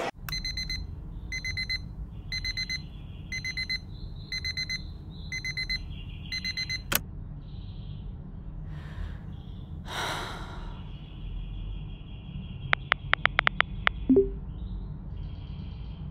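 An alarm beeping in quick bursts, about one burst every 0.8 seconds, for some seven seconds, then cut off by a sharp click. Near the end, a quick run of about eight phone keyboard taps followed by a short low tone.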